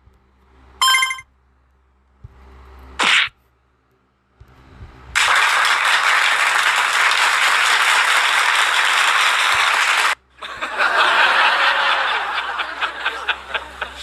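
A string of soundboard sound effects played back to back: a short ringing tone about a second in, a quick whoosh about three seconds in, then a loud rushing noise lasting about five seconds that cuts off suddenly, followed by a noisy stretch with rapid ticks that fades away.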